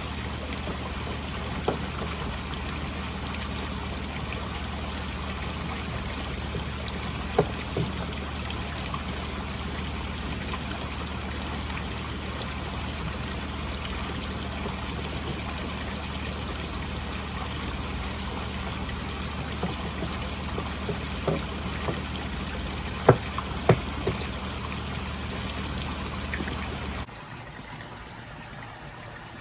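Koi pond water trickling and splashing steadily under a low steady hum, with a few sharp ticks. The sound drops abruptly near the end.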